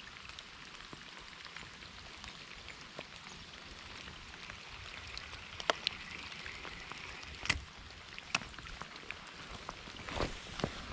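Light rain pattering on a creek's surface as a steady, even hiss of fine drop ticks, with a few sharper clicks about halfway through and near the end.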